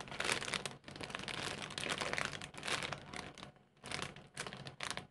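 Clear plastic packaging bag crinkling as a squishy toy inside it is handled. The crinkling comes in irregular bursts, almost continuous for the first three seconds or so, then a few separate short crackles near the end.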